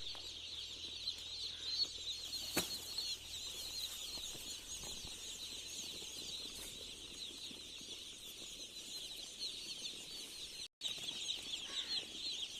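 A large flock of broiler chicks peeping continuously, many high chirps overlapping into a dense chorus. A sharp click sounds about two and a half seconds in, and the sound cuts out for a moment near the end.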